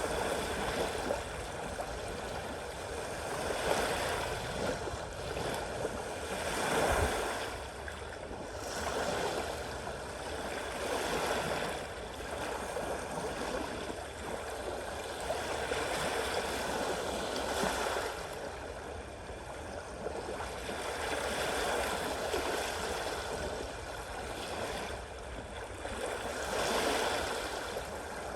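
Sea waves washing in, a steady hiss of water that swells and eases every few seconds.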